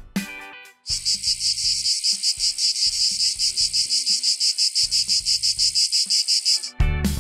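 Chorus of Brood X periodical cicadas: a loud, high-pitched buzz pulsing about eight times a second. It starts about a second in and cuts off sharply near the end, where strummed guitar music comes back in.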